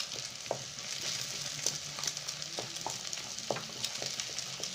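An egg frying in ghee with vegetables in a pan, sizzling steadily, while a wooden spatula stirs and scrambles it with scattered light knocks and scrapes against the pan.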